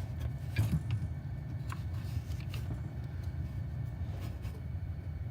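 A few light clicks and knocks of washing-machine parts being handled as the drive motor is fitted onto the coupler, over a steady low rumble.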